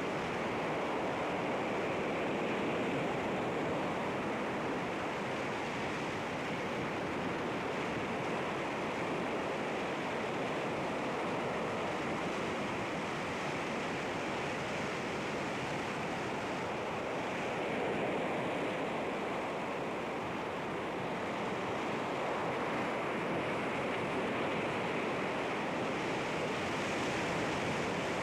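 Sea waves washing against rocks in a steady surf, a continuous wash of water with gentle rises and falls in loudness.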